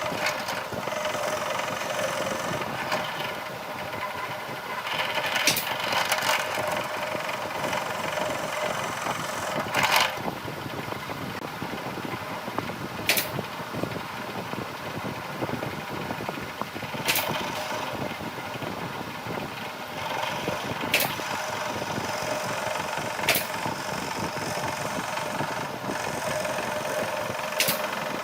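A motor running steadily, with sharp knocks every few seconds.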